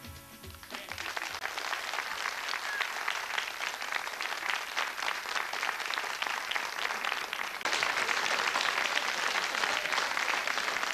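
Studio audience applauding with dense, steady clapping as a song's last notes fade. The applause swells louder about eight seconds in.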